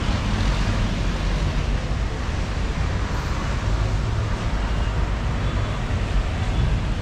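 Steady city street noise: a low rumble of road traffic, with no single event standing out.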